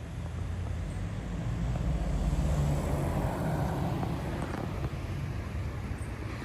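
Street traffic: a steady low rumble of passing vehicles that swells about two seconds in and then eases off.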